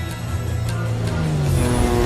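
Film score music with a motor sound under it; the motor's pitch drops in the second half.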